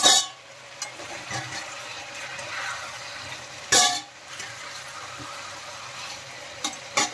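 Chicken pieces sizzling in hot mustard oil in a metal kadai while a metal spatula scoops them out, clanking and scraping against the pan. Two loud metallic clanks with a short ring come near the start and about four seconds in, and two lighter knocks near the end.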